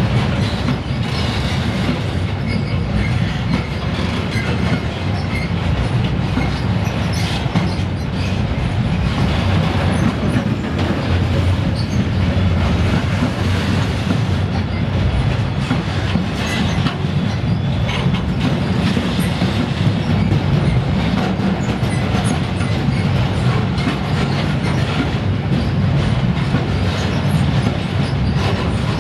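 Freight train of high-sided covered wagons rolling past close by: a steady low rumble of steel wheels on the rails, with irregular clicks and knocks from the wheels running over the track.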